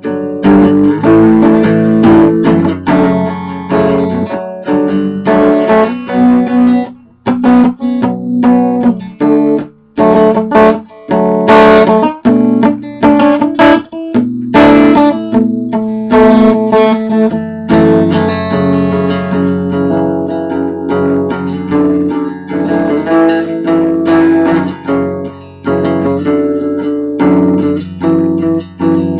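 Guitar played solo and improvised, with plucked single notes and chords and a few brief pauses between phrases.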